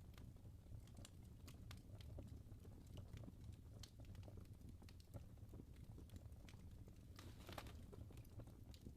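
Logs burning in a fireplace, crackling faintly: scattered sharp pops over a low steady rumble, with a brief flurry of crackles about seven seconds in.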